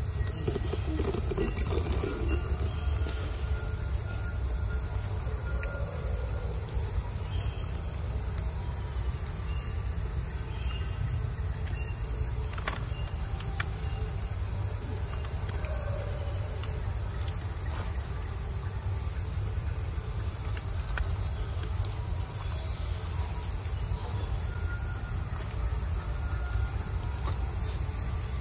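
A chorus of insects droning steadily at two high pitches, over a constant low rumble.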